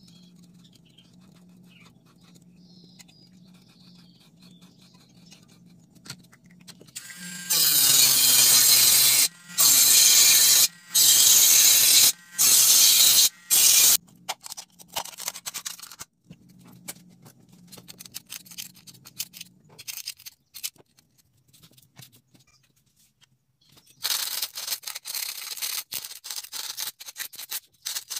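A small high-speed motor tool spins up about seven seconds in and runs loudly in four bursts with short breaks, cutting the aluminium of a soda can. After it, quieter scratching and scraping of the thin can metal, louder again near the end.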